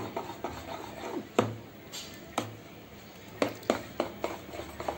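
A steel spoon stirring thick batter in a dish: a soft wet scraping, with several sharp clinks at uneven intervals as the spoon strikes the dish.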